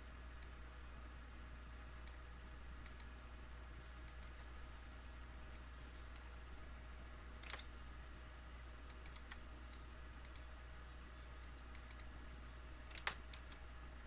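Scattered clicks of a computer keyboard and mouse, irregular and sometimes in quick pairs, with two louder clicks about halfway and near the end, over a faint steady low hum.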